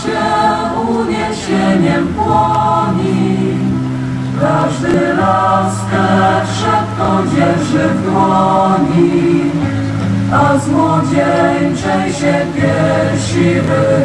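Choir singing in several parts, holding long notes over a steady low part, with breaks between phrases.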